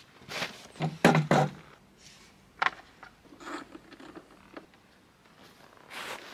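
Handling noises from taking the top cowling off a Suzuki 115 hp four-stroke outboard: a few knocks and clicks as the cowling is unlatched and lifted off, loudest in the first second and a half, then quieter scuffs.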